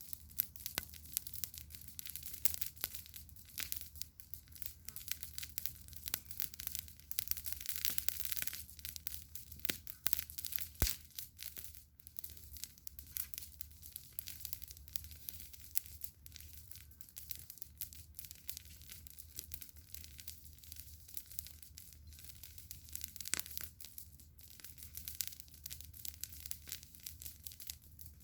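Campfire crackling and popping: dense, irregular snaps from burning wood, with a low steady hum underneath.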